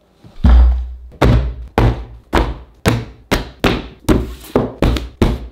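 Textbooks dropped one after another onto a wooden tabletop, about eleven heavy thuds that come faster and faster, the first the loudest.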